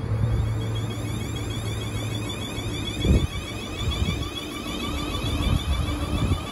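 South Western Railway Siemens Desiro electric multiple unit pulling away, its traction equipment whining in repeated sliding tones over a steady low hum. From about three seconds in there are several knocks as the wheels run over the rail joints and points.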